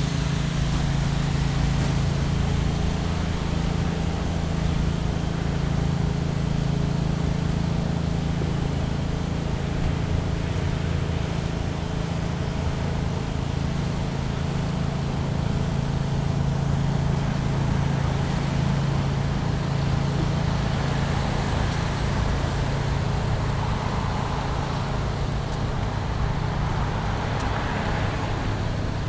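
Road traffic noise with a steady low hum.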